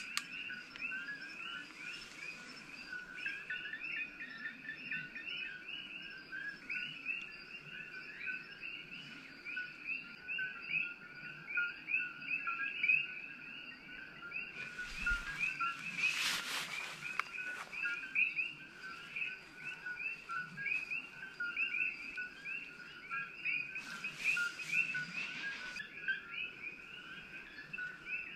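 A dense chorus of coquí frogs calling, many overlapping short two-note chirps without a break. Two brief bursts of rustling come over it, one about halfway through and one near the end.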